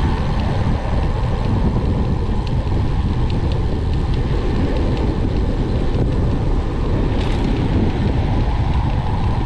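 Steady rush of wind buffeting an action camera's microphone as a road bike descends a steep hill at speed, with a deep rumble underneath.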